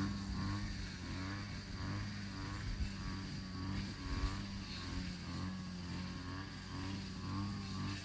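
An engine running steadily with a low, even hum, its pitch wavering slightly.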